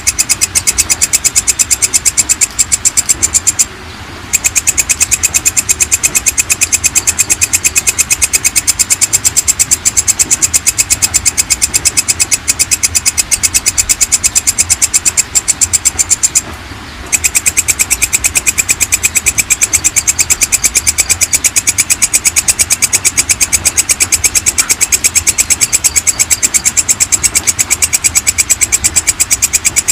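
Walang kecek (belalang kecek) katydid calling: a loud, fast, even train of ticking pulses, broken by two short pauses, a few seconds in and just past halfway.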